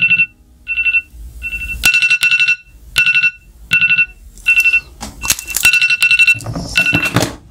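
Electronic alarm beeping: short single-pitch beeps repeating about every 0.7 s, with a few sharp clicks from handling in between.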